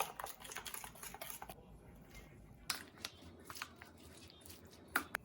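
Kitchen prep handling sounds: a quick run of small clicks and taps in the first second and a half, then a few single sharp knocks, the loudest near the end.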